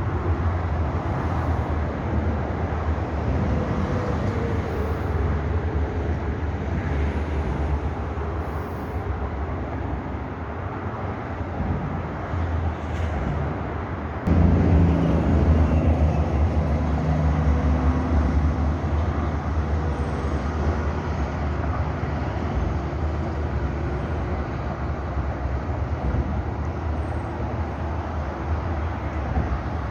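Steady low rumble of a moving vehicle. It jumps abruptly louder about halfway through.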